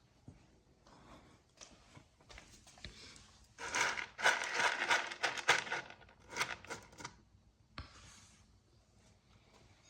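Crinkling and rustling of a plastic bag or wrapper being handled, in a run of crackly bursts from about three and a half to seven seconds in, with faint rustles around them.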